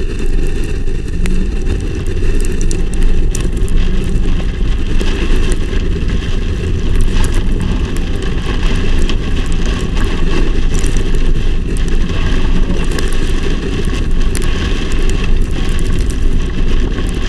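Heavy storm wind and rain: a loud, steady low rumble of wind buffeting the microphone, with many sharp ticks of rain striking throughout.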